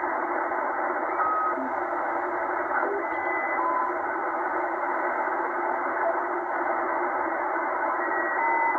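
Shortwave static from a Tecsun H-501X portable receiver in upper-sideband mode while it is being tuned across the band: a steady hiss held to a narrow, telephone-like pitch range. Brief whistling tones at different pitches come and go.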